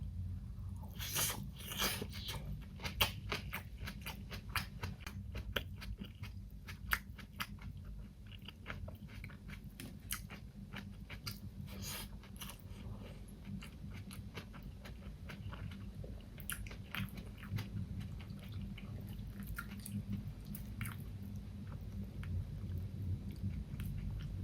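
A person eating close to the microphone, biting and chewing food with many sharp, crisp clicks of the mouth, thickest in the first several seconds, over a steady low hum.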